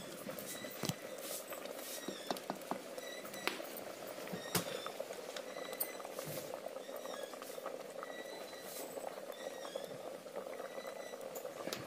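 Dal and drumstick-leaf sambar boiling in a clay pot over a wood fire: a quiet, steady bubbling with scattered small pops and crackles.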